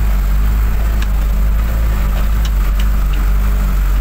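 Vehicle engine and road noise heard from inside the cab while driving on a dirt road: a steady low drone, with a few short clicks.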